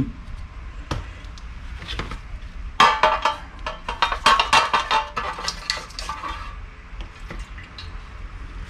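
Metal grease gun parts clinking and scraping against a pan as they are scrubbed free of old grease with a brush. There are a few scattered knocks, then a busy run of rattling clinks from about three seconds in to past six seconds, then only light ticks.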